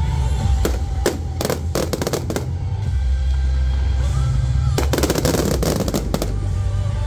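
Fireworks display: a series of sharp bangs in the first couple of seconds, then a dense run of rapid crackling reports about five seconds in, over loud music with a heavy bass.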